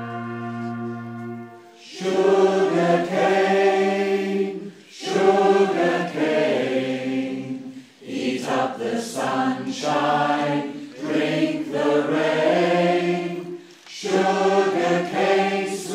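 Large amateur choir of about a hundred voices singing in full chords, recorded on a phone. A held chord dies away, then the choir sings a run of phrases with short breaks between them.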